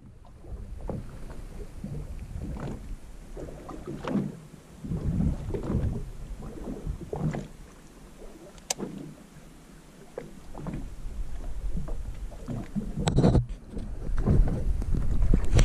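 Water slapping irregularly against the hull of a small fishing boat, with wind buffeting the microphone, stronger near the end. A sharp click about nine seconds in and a louder knock about thirteen seconds in.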